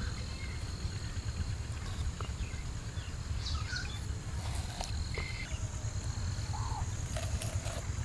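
Rural outdoor ambience: a steady low rumble with a few faint bird calls scattered through it and a thin, steady high-pitched tone.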